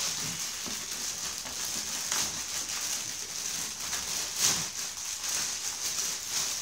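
Plastic mailer bag crinkling and rustling as it is torn open and pulled off a cardboard box, loudest about four and a half seconds in.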